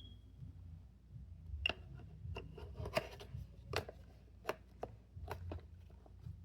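Fidget toys being handled and sorted: a string of about eight irregular small clicks and taps.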